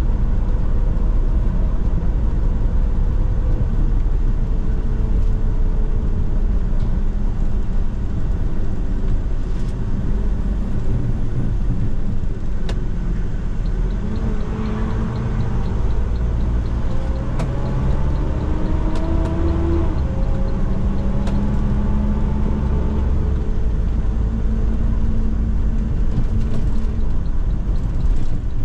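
MMI Urby LE CNG city bus heard from inside while driving: its Iveco 3.0-litre CNG engine and Hi-Matic automatic gearbox, with a steady low rumble. The engine note drifts down early on, then climbs in steps through the middle. Air-draft hiss sits across the microphone.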